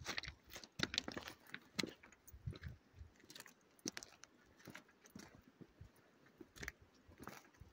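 Footsteps crunching on loose gravel and river cobbles of a dry creek bed: slow, irregular steps, about one or two a second, of a walker favouring a sore leg.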